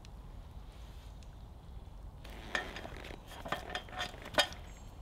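Low, even outdoor background for about two seconds, then a run of irregular clinks and knocks as small metal camping kit is handled and packed on a folding camp table, a few with a brief ring, the sharpest near the end.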